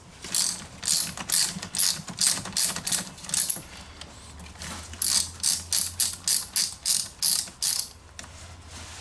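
Ratchet wrench clicking in quick strokes, about two to three a second, working the nut on a car battery's negative terminal clamp. There are two runs of strokes with a short pause between them.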